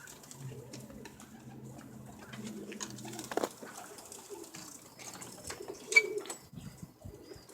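Domestic pigeons cooing, with low humming calls coming and going. A few sharp clicks are heard, the loudest about six seconds in.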